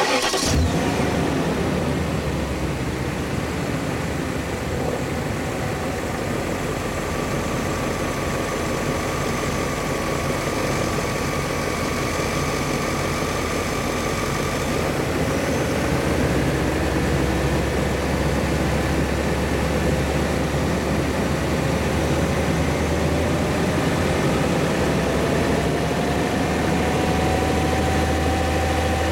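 BMW E39 M5's S62 V8 engine running steadily at idle, starting abruptly at the beginning; the owner suspects worn rod bearings behind a sharp knock.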